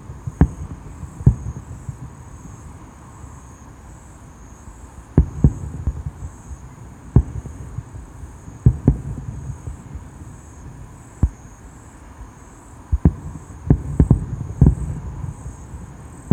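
Fireworks bursting: about fifteen sharp bangs at irregular intervals, several in quick clusters near the middle and end, with low rumbling between them. Insects chirping in a faint, steady pulsing trill underneath.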